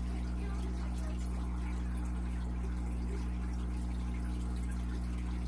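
A small motor humming steadily, with an even hiss over it and no change in level.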